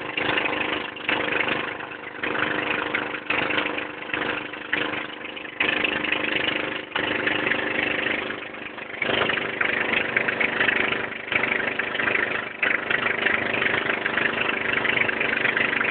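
Engine of a motorized outrigger boat (bangka) running steadily at cruising speed, with a hiss of wind and water that rises and falls over it.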